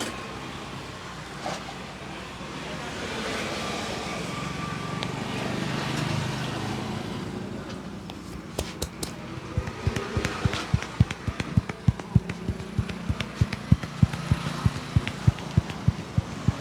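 Rapid rhythmic slapping of hands on a head during a barber's head massage, about three strikes a second, starting about halfway through. Steady street traffic runs underneath.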